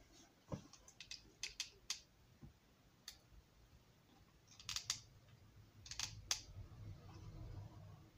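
Scattered light clicks and taps of a thin wooden model building wall being handled and turned in the hands, with a soft low rustle near the end.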